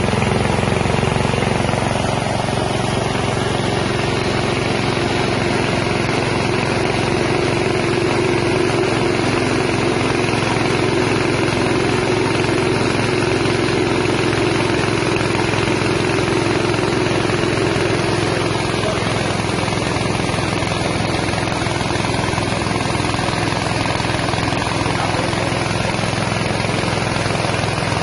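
Engine-driven mini rice milling machine running steadily: a continuous mechanical drone.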